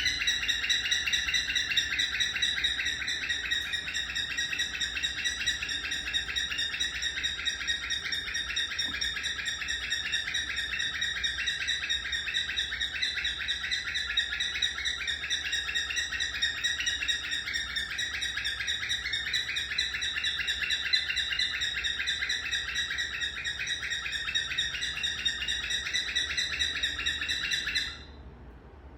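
Cockatiel calling loudly in a rapid, unbroken run of repeated chirps, stopping abruptly near the end.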